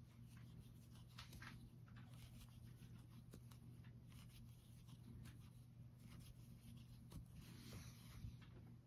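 Very faint scratching and soft clicking of a metal crochet hook pulling yarn through stitches in single crochet, over a low steady hum. A brief, slightly louder rustle comes near the end.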